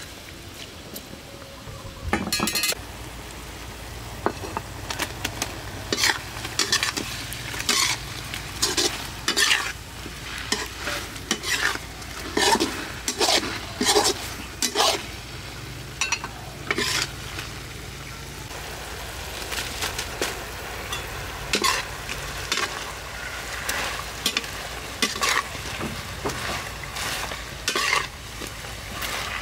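Food sizzling in a wok while a metal spatula is stirred through it, scraping and clinking against the pan again and again at an uneven pace. A low steady hum sits underneath from about two seconds in.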